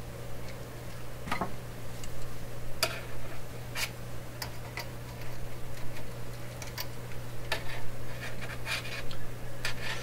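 Irregular small clicks and taps of tools and wire being handled while wiring the radio's chassis, about nine of them spaced unevenly, over a steady low hum.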